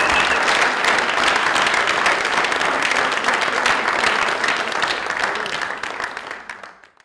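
Audience applauding, a dense steady clatter of many hands clapping that fades away near the end.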